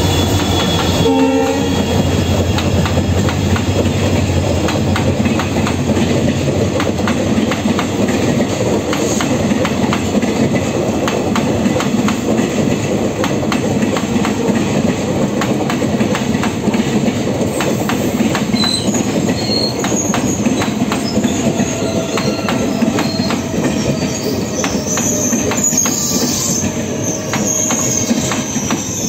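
Diesel-hauled Indian Railways passenger express rolling slowly past: the locomotive's engine and then the coaches, a steady roar with the wheels clattering over rail joints. A short horn blast sounds about a second in, and high wheel squeals come and go in the later part.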